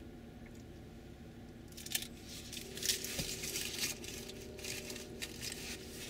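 Crinkling, rustling noise close to the microphone for about four seconds over a low steady rumble of distant machinery, with a faint steady hum coming in partway through.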